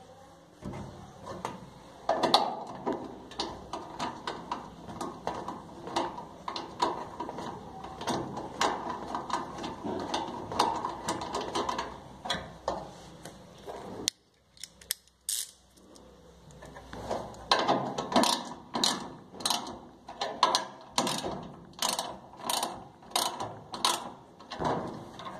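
Ratchet tool clicking as a screw on the dryer's gas burner bracket is turned: quick runs of clicks, a brief pause about halfway, then steadier strokes about twice a second.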